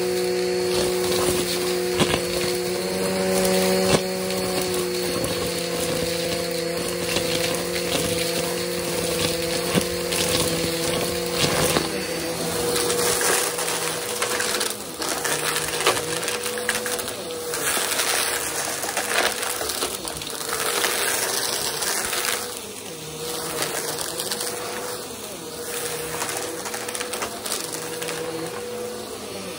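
Vacuum cleaner running with a steady motor hum while its hose tool sucks up a pile of small debris from a shag carpet, the bits crunching and clicking as they go up the hose. About twelve seconds in the motor tone shifts, and the rest is a rougher, uneven rush of air as the vacuum works over the carpet.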